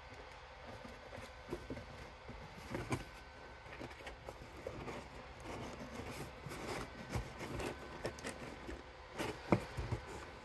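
Bengal cats scuffling in cardboard boxes: irregular scratching and rustling of cardboard with soft knocks, the sharpest knock about nine and a half seconds in.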